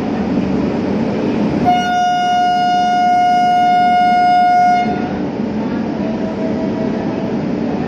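Air horn of an Indian Railways WAP-7 electric locomotive giving one long steady blast of about three seconds, starting a couple of seconds in. It sounds over the steady running rumble of the departing train, and a much fainter, broken horn tone follows near the end.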